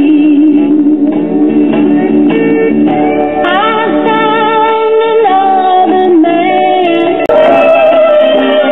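Music from a vinyl record playing on a 1968 Audiotronics 300A tube classroom record player, heard through its built-in speaker. About seven seconds in, the music breaks off with a click and a different record comes in.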